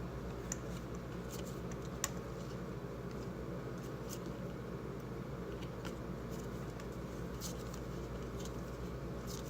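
Faint, scattered rustles and clicks of a pack of wrestling trading cards being opened and the cards handled, over a steady low room hum.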